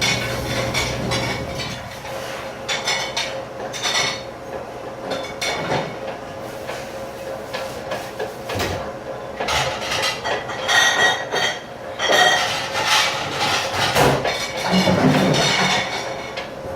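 Dishes and cutlery clattering and clinking as they are handled and stacked, with irregular knocks throughout and a steady hum underneath.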